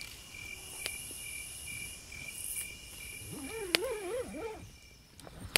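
Crickets chirping at night, a steady even chirp of about three a second over a high, thin insect hiss. About three and a half seconds in, a short wavering pitched sound lasting about a second cuts in, with a sharp click.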